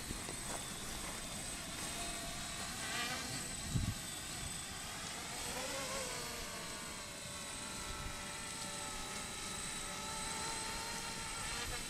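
Quadcopter drone's propellers buzzing, the pitch rising and falling as it speeds up and turns, with a brief low thump about four seconds in.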